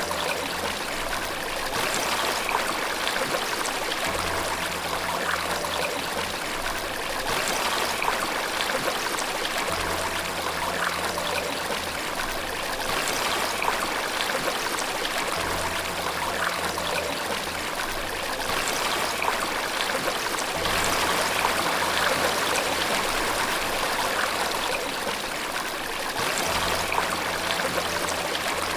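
Steady rush of falling water, a waterfall, swelling and easing slightly. Faint low held tones come back about every five seconds underneath.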